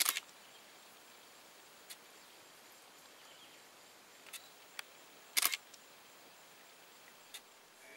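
Camera shutters clicking: single clicks here and there and two short rapid bursts, one at the start and one about five and a half seconds in, over a faint steady outdoor hiss.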